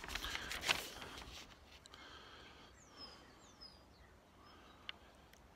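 Quiet outdoor background. Handling rustle in the first second or so as the paper plan is held up, then a few faint high bird chirps falling in pitch around the middle, and one small click near the end.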